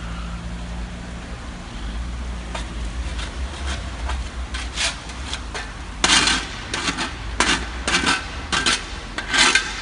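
Burning car crackling and popping over a low rumble, with scattered sharp cracks that become a run of louder cracks and bangs from about six seconds in.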